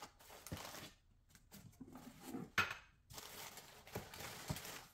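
Faint paper rustling and light knocks of small white ceramic bowls being lifted out of a cardboard box and set down on a countertop, a few separate clinks.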